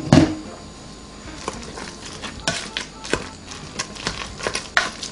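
Metal spoon scraping and clinking in an Instant Pot's stainless steel inner pot while breaking up cooked chicken and stirring it into rice and Alfredo sauce, in irregular strokes. Two loud knocks right at the start are the loudest sounds.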